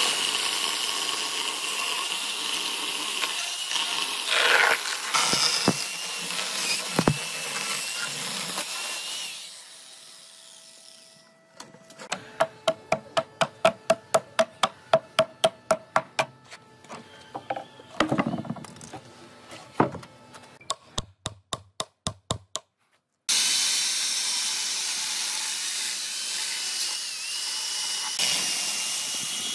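Chainsaw cutting into an old wooden railway sleeper. Midway it stops, and a run of hammer blows with a metallic ring follows, about three a second, then a few scattered blows. The chainsaw cuts again near the end.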